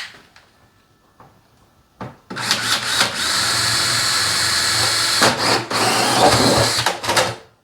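Power drill spinning a hole saw and cutting through the wall of a plastic barrel, starting about two seconds in, running steadily for about five seconds, and stopping just before the end.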